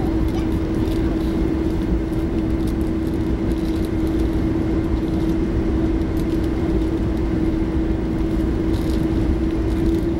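Steady cabin noise inside a four-engine Boeing 747-400 on the ground with its engines at idle: a low rumble with a steady hum held on one note.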